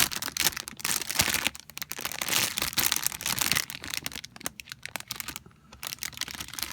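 Crinkling and rustling of plastic packaging with scattered clicks as model kit runners are handled, dropping off briefly near the end.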